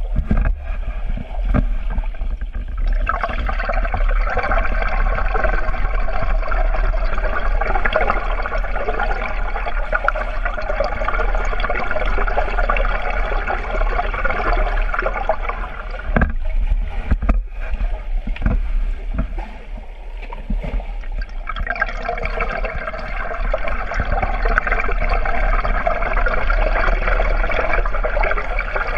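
Rushing, bubbling water heard underwater as a swimmer strokes and kicks through the pool, with a steady low hum underneath. The rush drops away for a few seconds past the middle, then returns.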